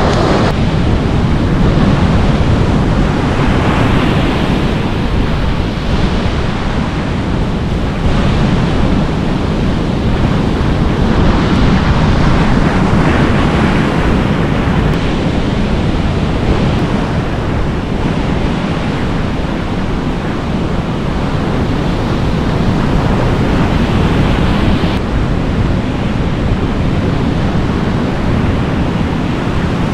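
Waves breaking and washing on a beach, mixed with wind buffeting the microphone: a steady, rumbling noise that swells and eases a little.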